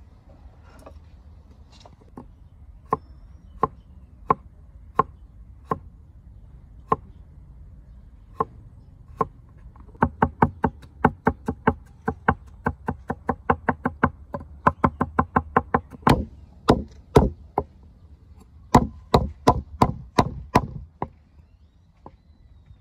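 Kitchen knife chopping food on a cutting board: slow, evenly spaced chops at first, then a quick run of about five chops a second around the middle, then several heavier, louder strikes near the end.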